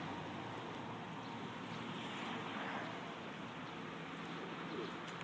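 Fire engine's pump running steadily, an even mechanical hum with a faint low tone.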